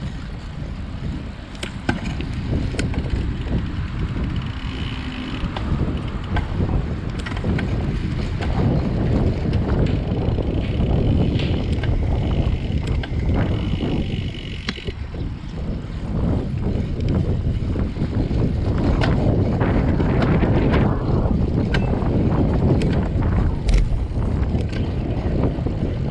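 Wind buffeting the microphone of a riding road cyclist, over a steady rush of tyre and road noise, with scattered small clicks and rattles.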